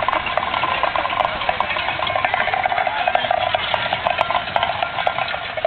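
Tin cans tied behind a golf cart clattering and scraping along the asphalt as the cart drives, with a golf cart engine running.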